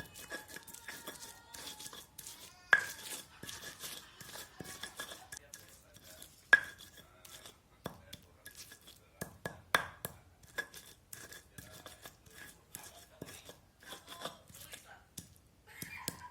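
Fresh spice paste of chillies, shallots, garlic and turmeric with salt being ground by hand in a manual grinder: a run of uneven clicks, knocks and crunches, with a few sharper knocks along the way.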